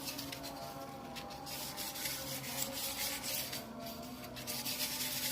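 Repeated scrubbing strokes on an engine block's surface, a rough scratchy rubbing that comes in uneven back-and-forth passes, as dirt and rust are worked off by hand.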